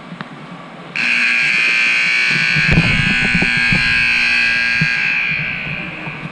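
Rink scoreboard buzzer sounding: a loud, harsh buzz that starts abruptly about a second in, holds for about four seconds, then fades. Knocks and thuds sound underneath it in the middle.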